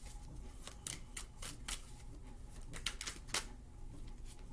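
A deck of tarot cards shuffled by hand, the cards slapping together in sharp, irregular clicks. The clicks are thickest about a second in and again about three seconds in.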